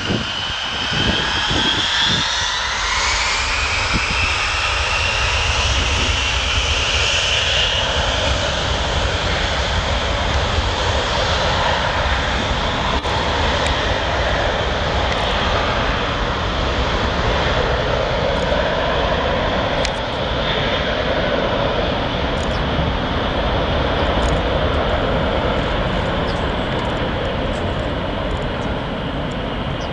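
Boeing 707's four jet engines spooling up to takeoff power, a whine rising over the first few seconds, then running at full thrust as a steady loud roar while the airliner rolls down the runway.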